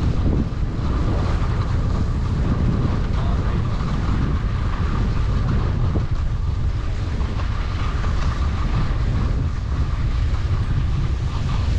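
Steady wind buffeting a skier's camera microphone, a low rumble while moving downhill.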